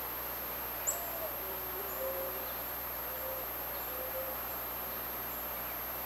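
Forest ambience: a steady thin high-pitched insect whine, with a distant bird giving short, soft, low notes every second or so. A single sharp high chip sounds about a second in.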